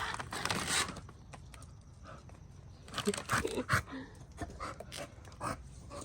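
Dogs panting, with a burst of rustling in the first second and scattered short clicks and knocks later as they handle their new chew toys.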